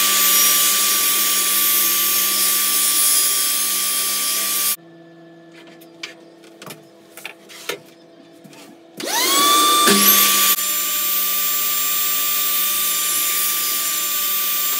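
Benchtop table saw running and trimming pine boards, a steady high motor whine with blade noise. It cuts off abruptly about five seconds in. A few seconds of wooden knocks and handling follow. Then the saw motor starts again with a rising whine and runs steadily.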